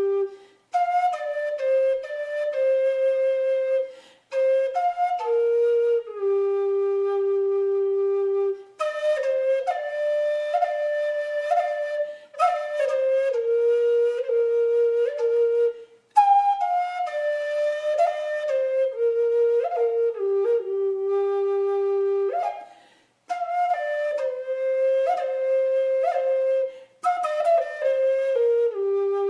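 Solo flute playing a slow melody of held notes, in phrases of a few seconds with short breaks between them.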